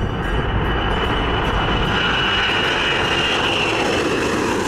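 Ilyushin Il-96 jetliner's four turbofan engines at takeoff power: a loud, steady jet roar with a high fan whine on top that slides slightly lower after about two seconds.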